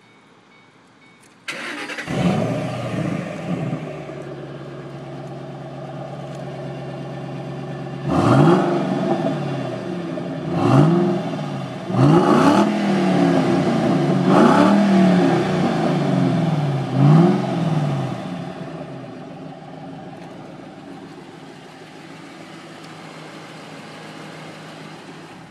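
A 2007 Ford Mustang GT's 4.6-litre V8 starts up about a second and a half in and idles, then is revved about five times, each rev rising and falling back, before it settles into a steady idle.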